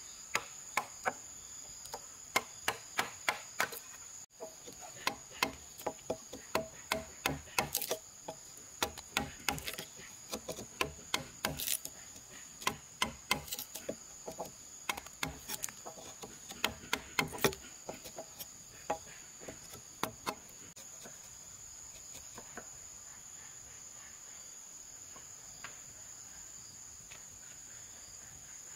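Wooden mallet striking a steel chisel to cut a mortise in a timber beam: sharp, irregular blows about two a second, thinning out and getting fainter in the last third. A steady high insect drone runs beneath.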